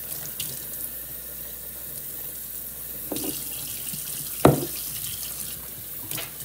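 Water running from a kitchen tap into emptied glass Alfredo sauce jars, to rinse out the leftover sauce. There are a few knocks, the loudest about halfway through.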